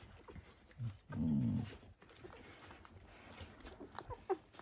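Small squeaks and whimpers from a litter of 11-day-old Dalmatian puppies, with a louder, low drawn-out grunt about a second in.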